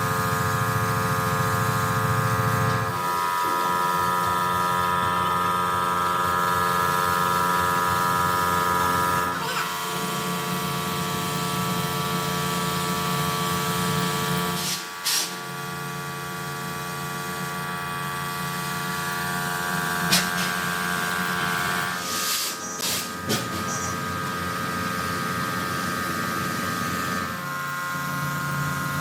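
Steady hum and hiss of workshop machinery in a fabrication shop. Its pitch pattern changes abruptly every few seconds, with a few short clicks in between.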